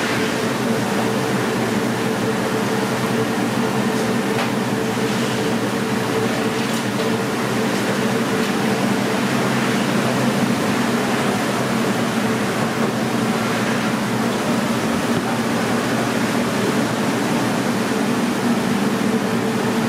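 Steady hum and rush of a commercial kitchen's ventilation fans, with a few faint clicks of utensils about a quarter of the way in.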